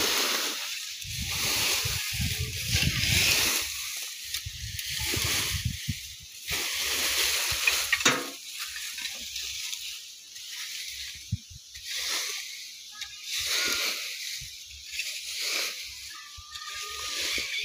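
Dry leaves and twigs rustling and scraping as they are raked together with a long-handled hoe, stroke after stroke.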